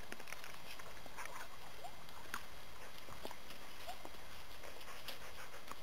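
Scattered light steps and hoof clicks of a miniature Shetland pony and its handler on a stony, leaf-covered path, over a steady outdoor hiss, with two short faint chirps.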